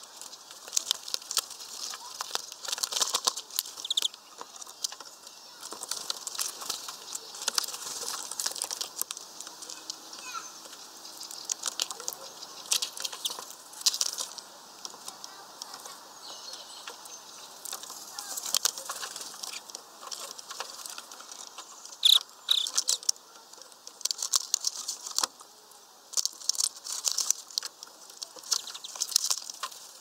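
European greenfinches feeding at a mesh bag of peanuts: a busy, irregular run of pecking clicks, crackles of the bag and wing flutters, with a brief high note or two.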